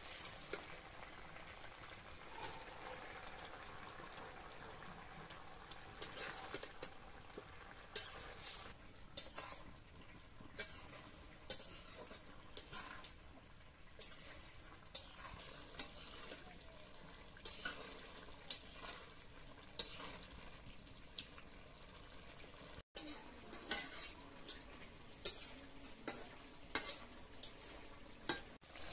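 A long steel spatula stirring and scraping a thick fish curry in a black kadai, with frequent short clinks of metal on the pan over the low sizzle of the simmering curry.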